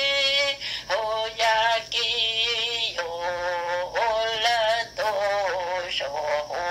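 A solo voice singing a slow melody, holding long notes with a slight waver between short breaks.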